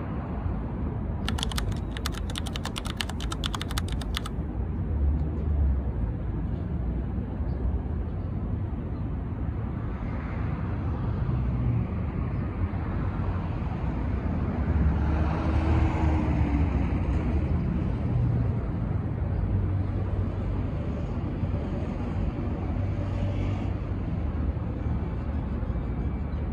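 City street traffic: a steady low rumble of road noise, swelling louder about halfway through as a vehicle goes by. Near the start a rapid run of sharp clicks lasts about three seconds.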